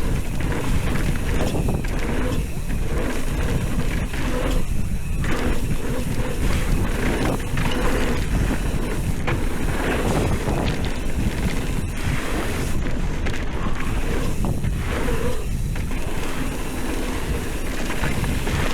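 Mountain bike riding down a dirt trail: wind buffeting the microphone, with tyre rumble and short knocks and rattles of the bike over bumps.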